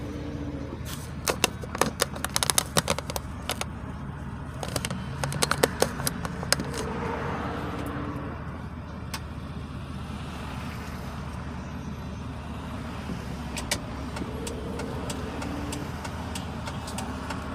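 Steady low rumble of a car engine running, with bursts of sharp clicks and rattles in the first six seconds.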